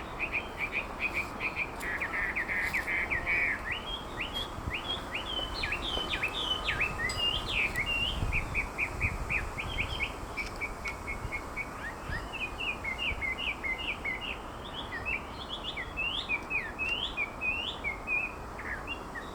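A wambi bird singing: a long, fast, unbroken string of short whistled notes, each sweeping up or down, with a brief harsh buzzy stretch about two seconds in.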